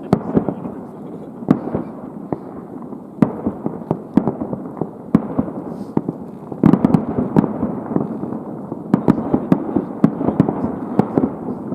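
Aerial fireworks bursting: a dense, irregular string of bangs and crackles over a continuous rumble, getting busier about halfway through and again near the end.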